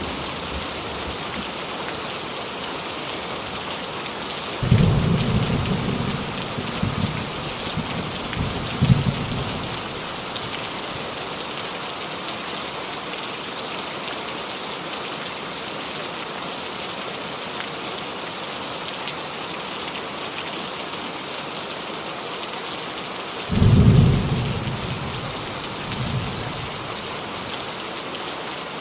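Steady rain falling on a roof, with two rolls of thunder: one about five seconds in that rumbles on in several pulses for about five seconds, and a shorter one near the end.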